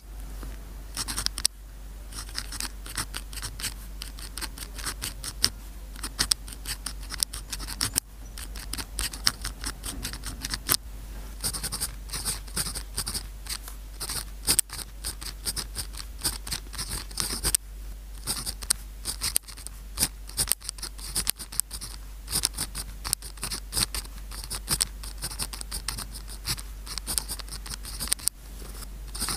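Pen scratching across paper in many quick, irregular strokes: handwriting, copying out words.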